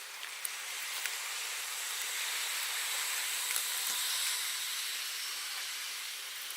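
Aerosol parts cleaner spraying onto the AAC valve: a steady hiss that swells toward the middle and eases off near the end, with a few faint clicks.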